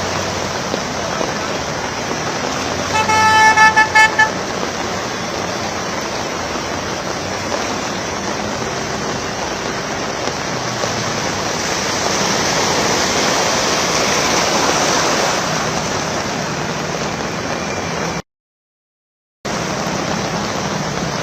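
Steady hiss of heavy rain and traffic on a waterlogged city road, with a car horn honking in a quick burst of several short toots about three seconds in. The sound cuts out completely for about a second near the end.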